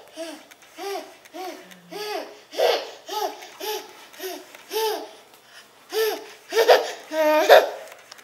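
A toddler laughing in short, repeated, rising-and-falling syllables, about two a second, ending in a louder, longer squeal near the end.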